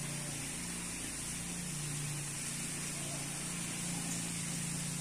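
A motor running steadily, a low even hum, under a constant high hiss.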